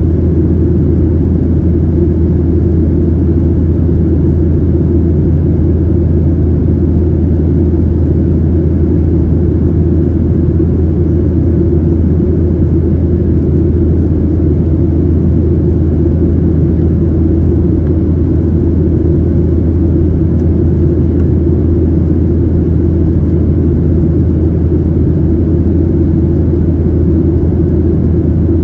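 Steady, unchanging low drone inside the cabin of a Boeing 737-700 in flight, from its CFM56-7B engines and the air rushing past the fuselage.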